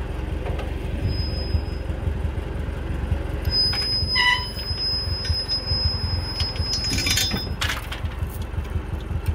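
1956 Ferguson TO35 tractor engine idling with a steady pulsing rumble. A brief high metallic squeal comes about four seconds in, and a quick run of metal clinks around seven seconds.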